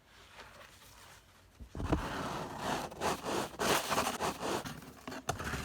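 Snow being scraped and broken off a roof edge, a loud irregular crunching and scraping that starts about two seconds in.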